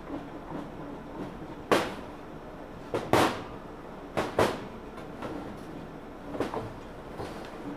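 About five sharp metallic knocks and scrapes, some in quick pairs, from tools working on a Columbia two-stroke golf cart engine's piston, which is seized tight in the cylinder.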